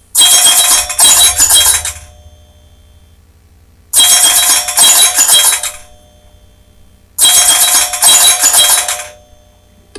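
Metallic jingling with bright ringing tones, in three bursts about three seconds apart, each lasting about two seconds and made of two shakes.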